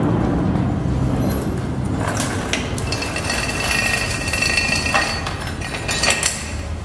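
A motorcycle's old metal roller drive chain being pulled off, with a few sharp metallic clinks over a steady low hum.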